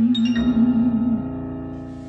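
A man singing a long held note with vibrato into a microphone over recorded backing music; the voice stops about a second in and the backing music fades away.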